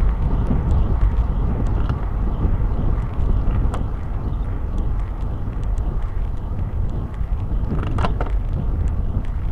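Wind rushing over the microphone of a camera on a road bike descending fast, as a steady low rumble. A few faint clicks come through, and there is a short higher-pitched sound about eight seconds in.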